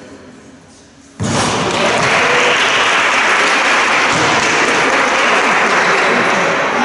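Applause and clapping after a basketball free throw. It starts abruptly about a second in and stays loud and steady.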